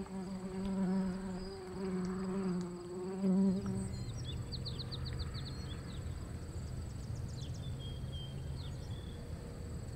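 A flying insect buzzing, swelling and fading, for about the first four seconds. Then insects chirp in short, rapid trills over a steady high insect drone.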